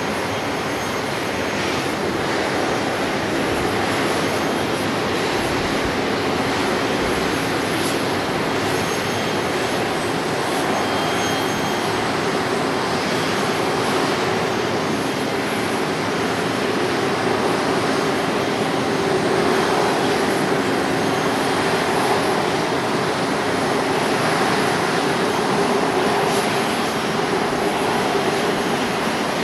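Boeing 737-500's CFM56 turbofan engines idling steadily, a continuous jet hum and hiss with no change in pitch.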